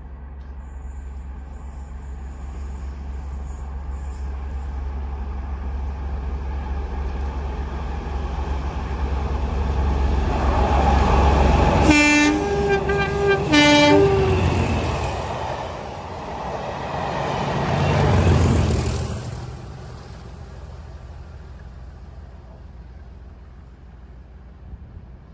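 Two Class 37 diesel locomotives passing, their English Electric V12 engines building up as the train approaches. About halfway through, the leading locomotive sounds its two-tone horn, low-high-low for about two seconds; the second locomotive's engine rises and passes some six seconds later, then the sound dies away.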